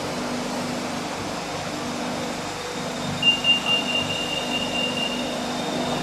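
Steady hum inside a BTS Skytrain car standing at a station with its doors open. About three seconds in, a high, rapidly pulsing beep sounds for about two seconds: the door-closing warning.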